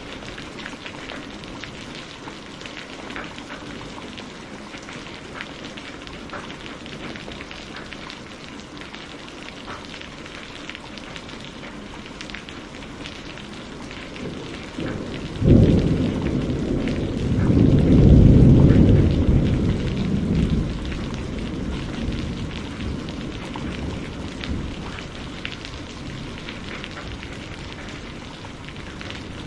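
Steady rain falling, with a dense patter of individual drops. About halfway through, thunder breaks suddenly and rolls into a deep rumble that swells for a few seconds and then fades away.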